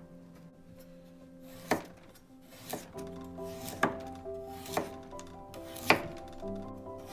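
Kitchen knife chopping food onto a cutting board, one sharp cut about every second with some strikes louder than others, over background music.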